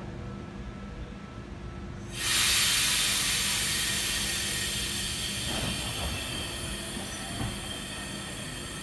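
A NSW TrainLink V set double-deck electric train lets out a sudden loud hiss of compressed air about two seconds in, which slowly fades: the air brakes releasing as the train starts to pull away from the platform.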